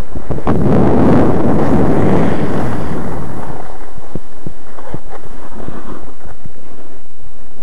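Wind buffeting the microphone of a camcorder carried on a downhill ski run. It is heavy for the first few seconds, then eases, leaving a series of short knocks and scrapes.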